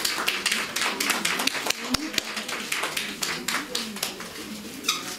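A small audience applauding, the clapping thinning out and dying down toward the end, with voices murmuring under it.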